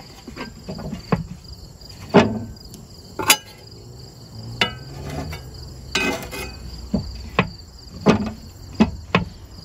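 A metal spatula knocking and scraping against a cast iron skillet on a grill grate, then the Weber grill lid being lowered and shut, heard as a series of sharp clacks and knocks, one with a brief metallic ring. A steady high-pitched chirring runs underneath.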